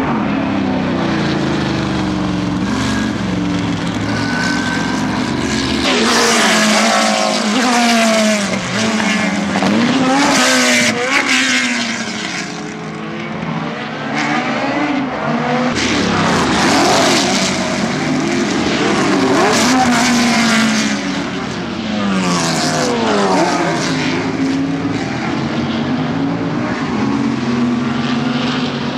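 Historic sports-racing cars, V8-engined Can-Am cars among them, passing at speed one after another: loud, hard-edged engine notes rising through the revs, breaking at gear changes and falling in pitch as each car goes by.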